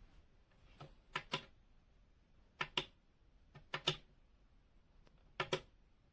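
Sharp clicks in quick pairs, four pairs spaced about a second and a half apart.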